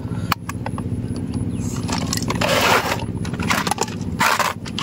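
Clicks and knocks from plastic toy RC cars being handled, with two short scraping rustles about two and a half and four seconds in. A steady low mechanical hum runs underneath.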